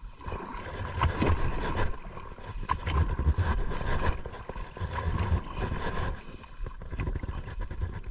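Wind rumbling on the microphone in repeated gusts, with water noise and a conventional jigging reel being cranked hard against a heavy fish.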